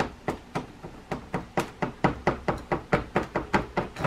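Gloved fingertip pressing powdery bath bomb mix into the design on the bottom of a 3D-printed plastic waffle mold: a steady run of light, quick knocks, about four a second.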